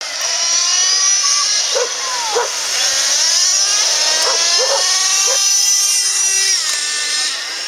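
Motors of radio-controlled off-road cars whining, their pitch rising and falling with the throttle. A dog barks several times over it.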